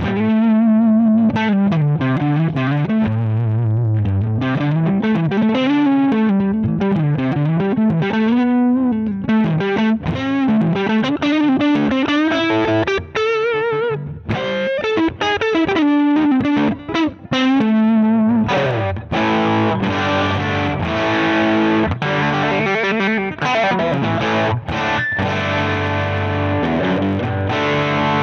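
Electric guitar played through a Zander Circuitry Surplus overdrive pedal: a single-note lead line with bends and vibrato, turning to chords about two-thirds of the way through.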